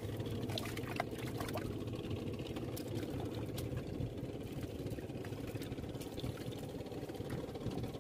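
A small engine running steadily, with dry leaves and twigs crackling and rustling as hands sort small fish out of the debris caught in a net.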